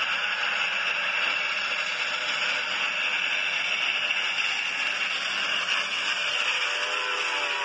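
Steady hiss, like static, from an old film's soundtrack played through laptop speakers. A faint tone comes in near the end.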